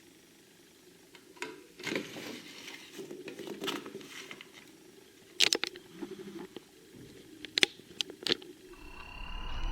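Irregular clicks, taps and rustling, like small objects being handled, with two sharper clicks in the second half. Near the end a steady whine with a low hum starts up.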